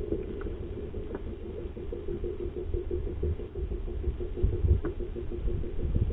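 Fishing reel paying out line as a jig sinks towards the bottom: a steady, rapidly fluttering whir, over a low rumble that swells about four and a half seconds in.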